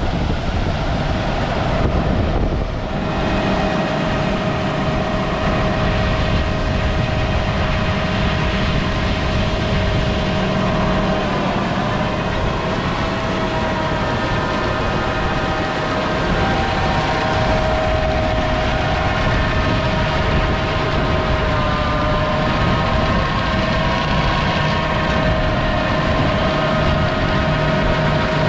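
Large diesel harvest machinery running steadily under load, a deep rumble under a high, slightly wavering whine from its drives.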